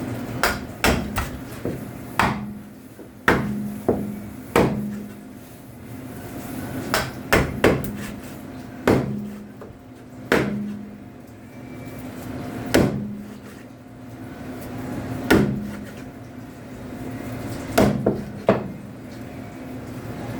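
A heavy knife chopping through a bonito on a cutting board to cut it into steaks. The strikes are sharp and come at irregular intervals, some in quick runs and some several seconds apart.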